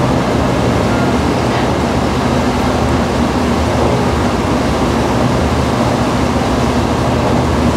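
Motor launch's engine running steadily at cruising speed, a constant low hum heard from on board, with the rush of water and wind along the hull.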